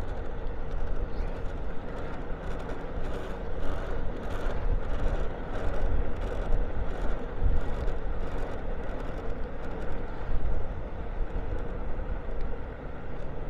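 Moped engine running steadily while riding along a street, with wind rumbling on the microphone.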